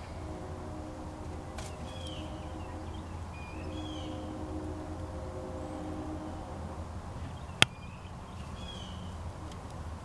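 Small birds chirping now and then, a few short calls spread through, over a steady low drone. One sharp click about three-quarters of the way through.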